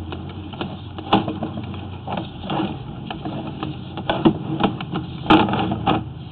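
Sewer inspection camera's push cable being pulled back out of the line: irregular clicks and knocks, several a second, loudest about four and five seconds in, over a steady low hum.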